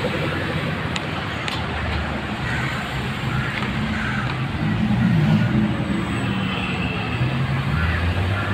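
Cars driving slowly past one after another: a steady mix of engine and tyre noise from the passing traffic.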